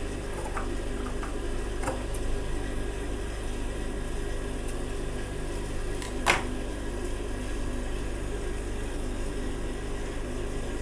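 Steady hum of an industrial sewing machine's motor left running while the fabric is handled, with a few light clicks and one sharp click about six seconds in.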